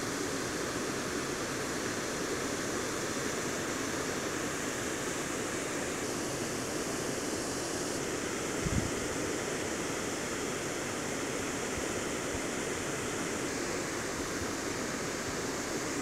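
Water of Keila waterfall pouring over a rock ledge and falling into the pool below, a steady roar. A brief low thump a little past halfway.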